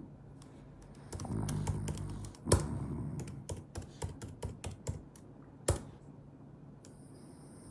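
French bulldog snoring in its sleep: one low snoring breath, then a run of quick, irregular clicks lasting about three seconds, with a sharper click at its start and another at its end.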